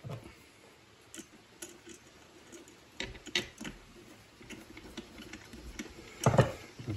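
Scattered light clicks and knocks of metal parts being handled on a 3018 CNC router's gantry and aluminium extrusion frame, with a heavier knock about six seconds in.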